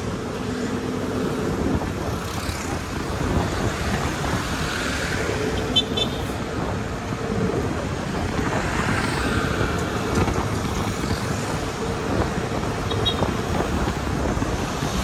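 Road traffic noise heard from a moving vehicle: a steady engine hum under a constant rush of tyre and wind noise, with motorcycles and other vehicles passing close by.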